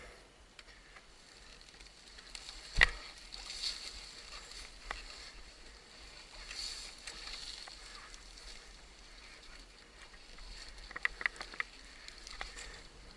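Mostly quiet with no engine heard, broken by one sharp knock about three seconds in and a quick run of small clicks near the end.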